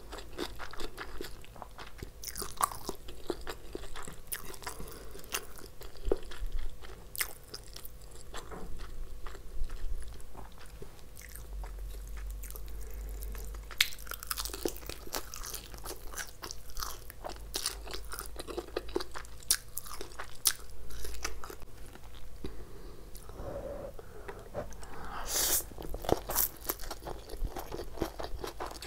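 Close-miked eating: crisp bites and crunches with steady chewing and wet mouth sounds, from crisp fried food and noodles.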